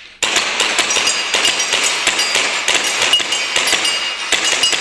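Gas blowback airsoft pistol firing a rapid string of shots, about three to four a second, with sharp clinks and short ringing clangs as BBs strike the targets.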